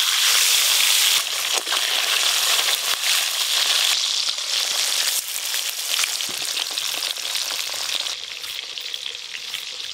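Fish frying in hot mustard oil in an aluminium wok: a loud, steady sizzle with scattered crackles, softening a little near the end.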